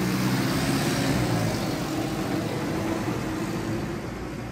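Mercedes-Benz OH1621L city bus's four-cylinder OM-924 LA diesel with a free-flowing 'escape libre' exhaust, running under load as the bus drives off. It grows fainter near the end.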